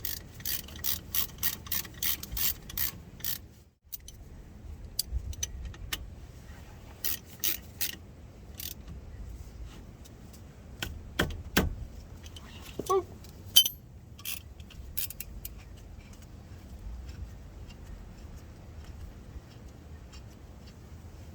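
Metallic clicks and clinks of hand tools working on the wheel and hub assembly. A quick, even run of clicks comes first, then scattered clicks and a short squeak about halfway through.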